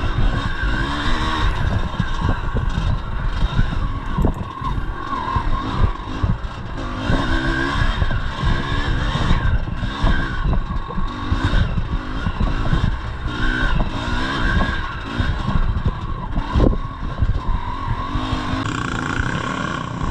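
Two-stroke single-cylinder engine of a 1983 Yamaha IT 250 enduro bike being ridden hard on trail, its revs rising and falling over and over, with frequent knocks and rattles from the bike over rough ground.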